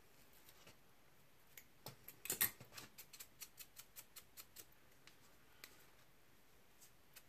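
Small scissors snipping a clump of deer hair to length: a quick run of sharp snips, about five a second, starting a second and a half in and stopping after about three seconds, with a few single snips later.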